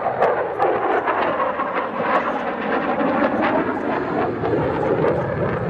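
Fighter jet engine noise: a loud, steady roar with a slowly wavering pitch and scattered clicks.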